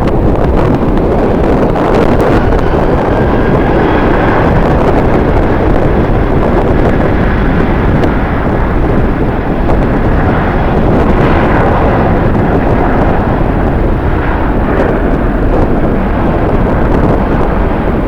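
Jet airliner engines running, with a faint whine rising and falling, heard through heavy wind buffeting the microphone.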